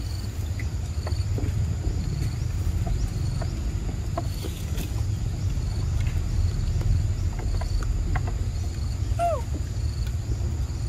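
Forest ambience: a steady high insect drone with short chirps repeating at even intervals, over a continuous low rumble. A few faint ticks, and a single brief falling squeak about nine seconds in.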